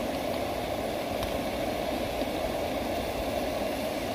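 Canister camping gas stove burner running steadily under a pan of minced beef that is sizzling.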